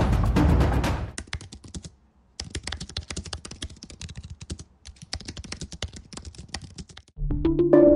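Fast typing on a computer keyboard: rapid key clicks in runs with short pauses. Intro music stops about a second in, and a new music sting with held tones begins near the end.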